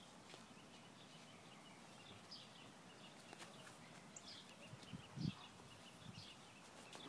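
Quiet outdoor ambience with faint bird chirps repeating throughout, and a brief low thump about five seconds in.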